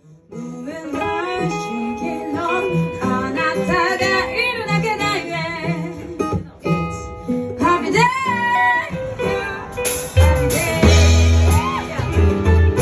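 Live band music: a sliding melody over plucked guitar, with a heavy bass coming in about ten seconds in.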